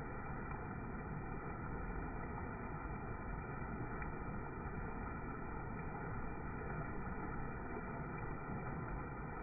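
Floodwater of a swollen creek pouring over a small rock-ledge waterfall into a churning pool: a steady, even rush of water, dull and muffled with no high hiss.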